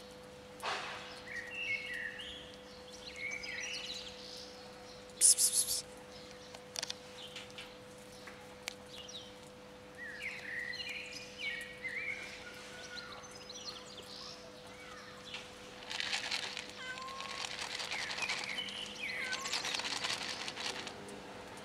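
Outdoor street ambience: short high chirping calls on and off over a steady low hum, a sharp crackle about five seconds in, and a longer stretch of louder rushing noise near the end.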